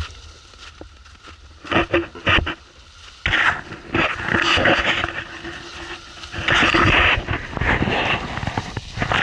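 Suzuki Jimny wading through a shallow river ford, its engine running under rushing, splashing water pushed up by its wheels, in a few surges, the longest about three seconds in.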